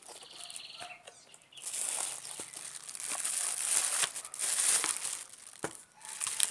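Packaging crinkling and rustling as it is handled, in irregular bursts that start about one and a half seconds in.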